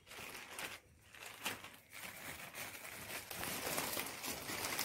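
Plastic courier mailer bag crinkling and rustling as it is handled, with a short pause just before a second in.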